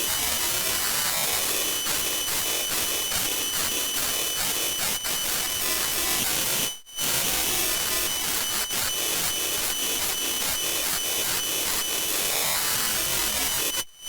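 An animated logo's intro jingle, heavily distorted by audio effects into a harsh, dense noise with a steady high whistle through it. It plays twice in a row, about seven seconds each, with a short break between.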